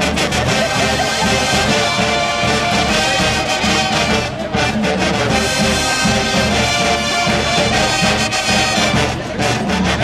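Marching band playing: a full brass section of trumpets and sousaphones over a drumline of snares and bass drums, loud and continuous with a steady drum pulse.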